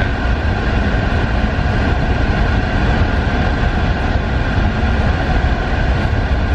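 Steady, loud rumble and hiss inside a car cabin, as from the engine idling with the air-conditioning fan blowing, with a faint steady whine in it.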